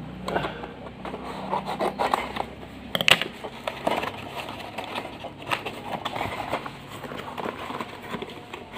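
Long cardboard box being torn open by hand: irregular scraping, rubbing and tearing of cardboard and packing tape, with a sharp crack about three seconds in.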